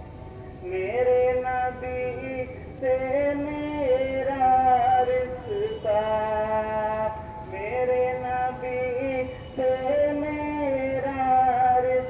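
A solo voice singing a naat, a devotional Islamic song in praise of the Prophet. It holds long notes and slides between pitches, in phrases broken by short pauses.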